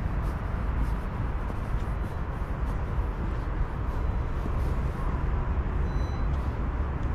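Steady outdoor background noise dominated by a low rumble, with no distinct events standing out.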